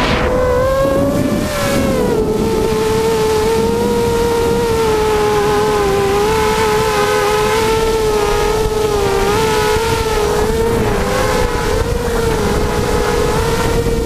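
Mini hexacopter's six Tiger MN1806 2300kv brushless motors spinning 5x3 two-blade props: a steady whine with small wobbles in pitch, dropping a little about two seconds in. Wind rushes over the onboard GoPro's microphone.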